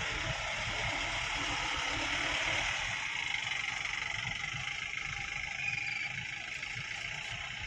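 Vehicle engine idling steadily, heard from inside the cabin, with a continuous hiss of traffic noise.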